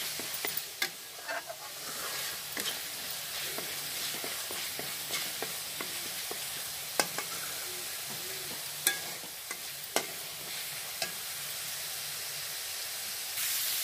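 A pan of onion-and-spice masala sizzling as it fries, stirred constantly with a spatula to keep it from burning on the bottom. A steady sizzle with scattered sharp clicks of the spatula against the pan, the sizzle getting louder just at the end.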